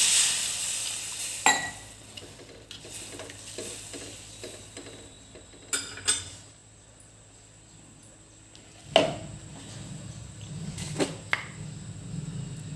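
Water poured into a hot kadhai of fried onion-tomato masala sizzles loudly and dies away within about two seconds. After that come a few sharp clinks of a spoon and utensils against the pan.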